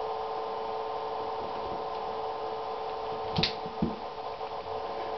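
Steady electrical hum made of several tones, with two light knocks about half a second apart a little over three seconds in.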